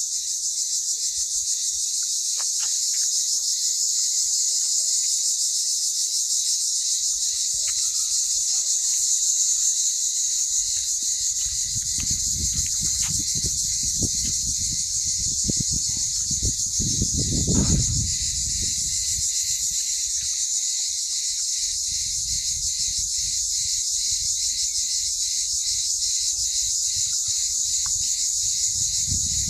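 A steady, high-pitched insect chorus with a fast, even pulse, with a few faint short bird calls in it. Low rumbling gusts come in about halfway through, loudest around seventeen seconds, and again near the end.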